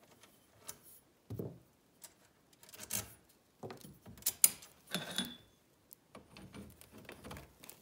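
Small metal clicks and taps of a nut and washers being taken off a bolt on a kayak seat's metal frame and set down, with handling of the frame and seat fabric. A short metallic ring a little past halfway.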